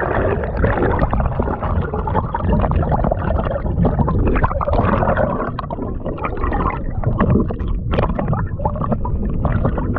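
Water gurgling and sloshing around a camera held underwater, heard as a muffled, steady rumble peppered with small knocks and clicks.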